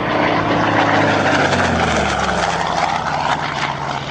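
Yak-11 warbird with a Pratt & Whitney 14-cylinder radial engine flying past, the engine and propeller drone loud and falling in pitch as it goes by.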